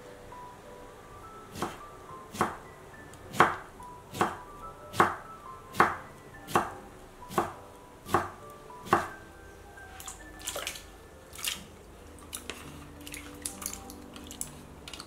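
Chef's knife slicing salt-pickled cucumbers on a wooden cutting board: about ten even chops a little under a second apart. Lighter clicks and clinks follow in the second half, over soft background music.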